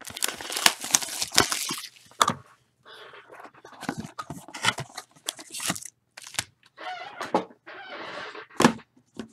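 Plastic wrapping being torn and crinkled off a Tier One baseball card box, followed by scattered rustles and light clicks as the box is opened and its foil-wrapped pack is handled.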